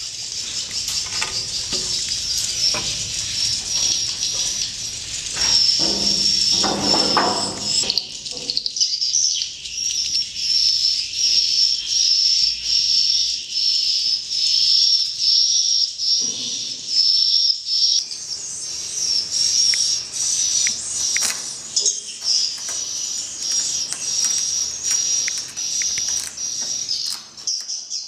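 Dense, continuous high-pitched chirping and twittering of many swiftlets roosting together in a swiftlet house.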